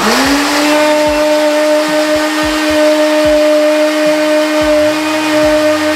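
Countertop blender switching on and running at full speed, blending a cheeseburger, fries, apple slices and apple juice. The motor spins up in pitch in the first moment, then holds a loud, steady hum.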